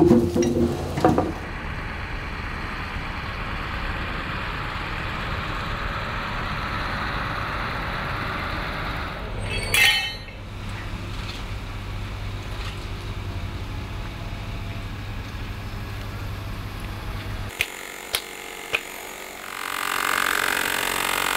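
Engine of the crane truck running steadily while a boulder hangs on lifting chains, with chains and the crane hook clinking about a second in and again about halfway through. Near the end, a few sharp taps of tools on rock, then a steady whirring machine noise starts.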